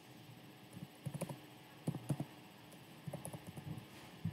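Computer keyboard being typed on: faint, irregular key clicks in small clusters.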